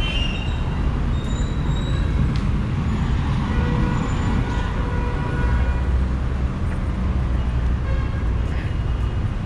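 Busy city street traffic at an intersection: car and bus engines running and passing in a steady rumble, with a few brief horn toots.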